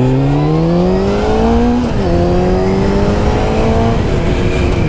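Kawasaki ZZR600's inline-four engine accelerating. Its pitch climbs, drops at an upshift about two seconds in, climbs again, and drops at a second upshift near the end, with wind noise underneath.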